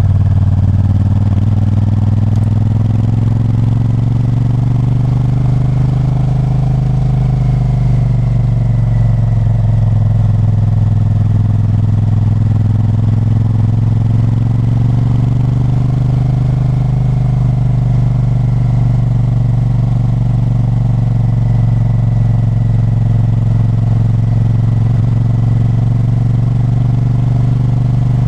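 Honda Varadero 1000's 90-degree V-twin engine running under way, heard from the rider's seat. Its pitch rises and eases gently several times as the throttle is opened and closed.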